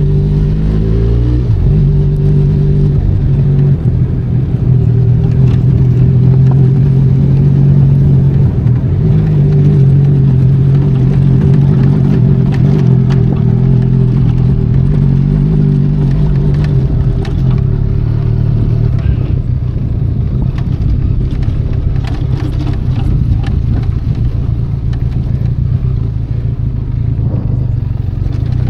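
Benelli Leoncino 500 Trail's parallel-twin engine running under load on a dirt trail, its note shifting in the first second or two and then holding fairly steady. Scattered clicks and clatter come in through the middle and later part.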